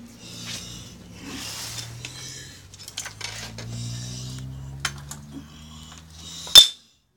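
Metallic clinking and clicking with short bursts of rustling, ending in one sharp, loud knock; a faint low hum runs underneath.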